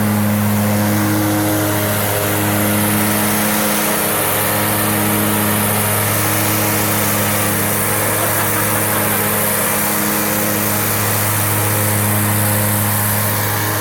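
Ferris zero-turn riding mower running steadily while mowing: an even engine hum over a constant hiss from the mowing deck.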